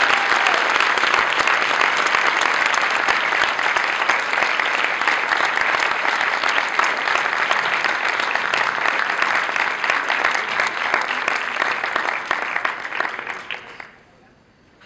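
Large audience applauding, a dense steady clapping that dies away near the end.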